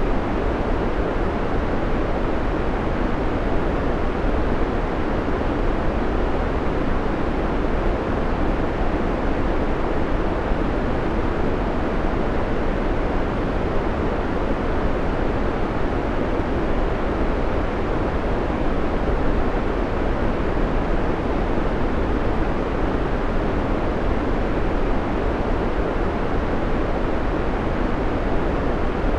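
Steady white noise: an even, unbroken hiss, weighted toward the low and middle range.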